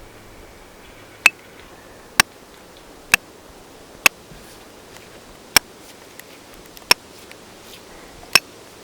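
Seven sharp knocks, evenly spaced about a second apart, like a tool striking wood while splitting cedar.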